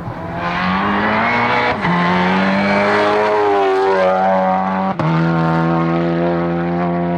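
A hillclimb race car's engine pulling hard uphill, revs rising, with sharp gear changes about two seconds and five seconds in, then held at high revs.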